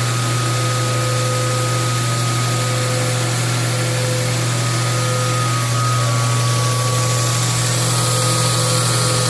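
Belt knife grinder running steadily with an 80-grit belt, its motor hum and the hiss of the fast belt grinding a Damascus blade. One of its tones steps slightly lower about six seconds in.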